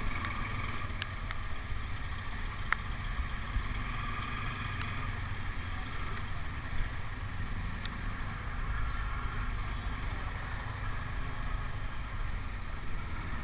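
Motorcycle riding along, its engine and road noise running steadily under a low wind rumble on the microphone, with a few faint clicks.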